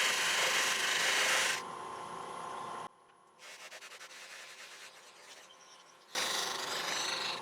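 A wooden bottle-opener handle pressed against a spinning cloth buffing wheel loaded with brown compound, making a loud rubbing hiss. The hiss eases off after about a second and a half, almost stops for a few seconds, and comes back loud near the end.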